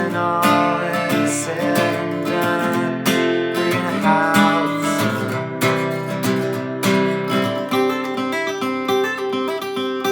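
Solo acoustic guitar strumming chords in a steady rhythm: an instrumental passage of an Americana song.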